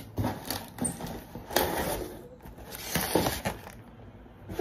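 Cardboard box and plastic packaging being pulled open and handled by hand: a few bursts of scraping and crinkling, loudest about a second and a half in and again around three seconds in.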